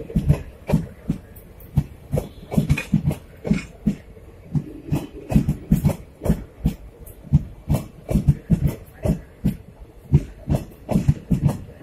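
Passenger coaches of an express train passing at speed, their wheels clacking on the track in a steady rhythm of sharp knocks, several a second and often in pairs, over a low rumble.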